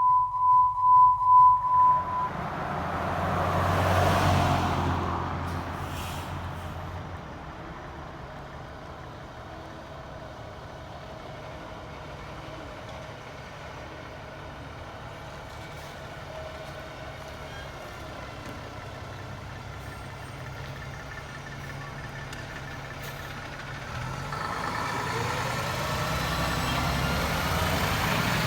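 Fire dispatch alert tone pulsing at one steady pitch, stopping about two seconds in. It is followed by a fire engine's motor swelling loudly, then running steadily. Near the end the vehicle noise grows louder, with a tone rising in pitch as the siren starts to wind up.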